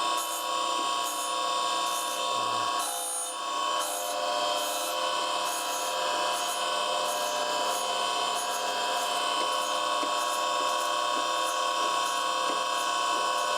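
Surface grinder's abrasive wheel grinding the top face of a steel forging tool: a steady whine with several fixed tones over a continuous gritty hiss.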